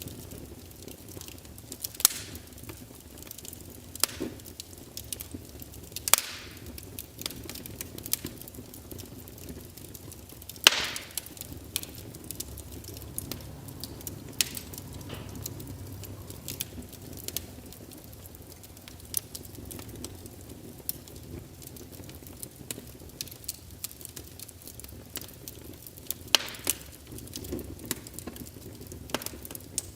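Wood fire in a fireplace crackling, with irregular sharp pops, the loudest about a third of the way in, over a steady low rush of burning.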